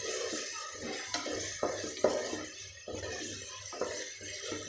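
Wooden spatula stirring chopped tomatoes and onions frying in oil in a metal pot, scraping and knocking against the pot several times as the tomatoes are sautéed soft.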